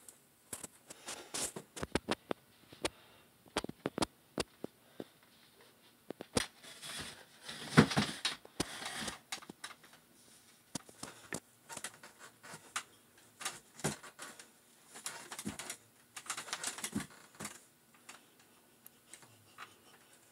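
Wooden chair being handled and moved about on the floor: irregular light knocks and clicks, with a louder scraping, rustling cluster about eight seconds in and another near the end.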